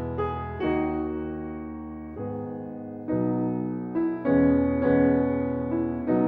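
Slow piano music: sustained chords struck every second or so, each note dying away slowly.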